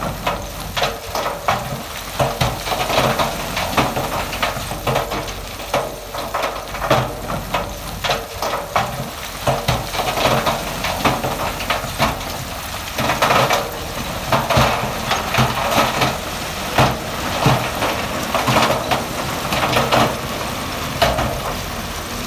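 Loose stone and rock clattering and grinding in a dense run of small knocks, with a heavy diesel engine running underneath.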